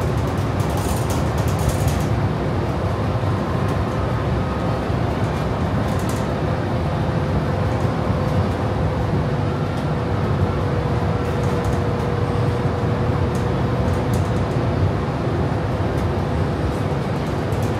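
Steady interior running noise of a moving passenger vehicle: a low rumble with a faint, even hum that drifts slightly in pitch.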